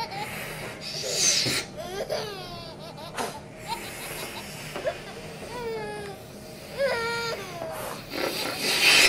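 Rubber balloon squeaking as fingers squeeze and rub it: a run of short squeals that slide up and down in pitch. A louder rush of noise comes near the end.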